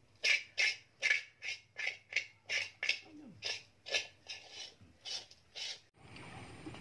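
Knife scraping burnt, stuck-on residue from the bottom of a large metal wok in quick repeated strokes, about three a second. Near the end it gives way to a steady outdoor hiss.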